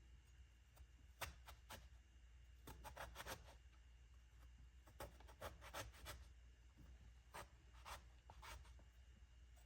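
Faint, short scraping strokes, single or in quick groups of three or four, over a steady low hum.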